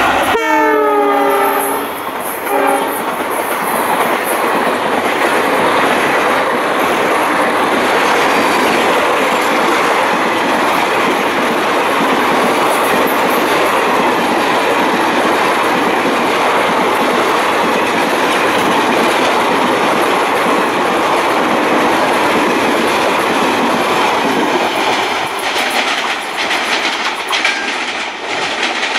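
Horn of a WDP4D diesel-electric locomotive (EMD GT46PAC) sounding as it passes, its chord falling in pitch, with a short second blast about two and a half seconds in. Then the coaches of the express run past at speed: a steady rush of wheels on rail, with rapid clicking over the rail joints near the end.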